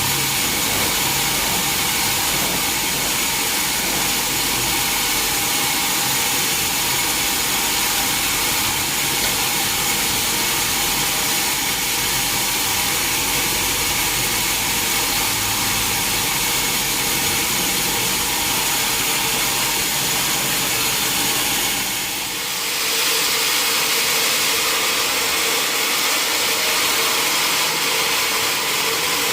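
Sawmill machinery running steadily, a saw and its drive motor making a continuous loud whir with a fixed hum. The sound dips briefly about three quarters of the way through, then carries on with a slightly changed tone.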